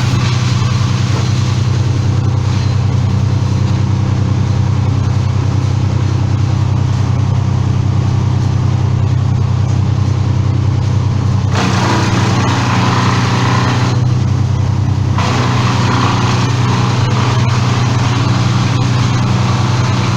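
An engine running steadily and loudly, with a constant low drone and a rougher, brighter noise layered over it twice in the second half.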